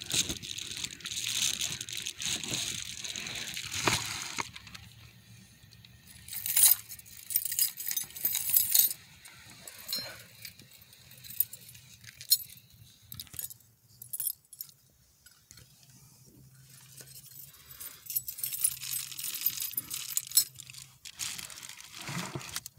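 Metallic jingling and clinking with rustling, in three spells: the first few seconds, again about six to nine seconds in, and again near the end, with quieter gaps between.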